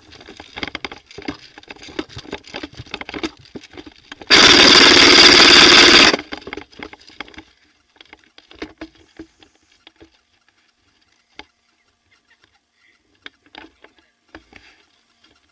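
Rustling and scattered knocks, then a loud burst of full-auto fire from an airsoft electric gun lasting about two seconds, starting and stopping abruptly, followed by faint scattered clicks and steps.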